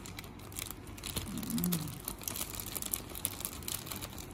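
Thin plastic bag crinkling and crackling in the hand as it is squeezed to pour out a wet chili dip, in many small irregular clicks. A short low hum of a voice comes about a second and a half in.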